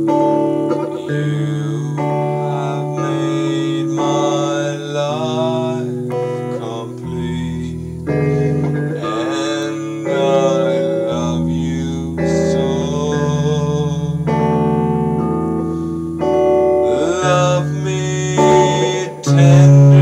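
A man singing long, drawn-out notes while playing guitar.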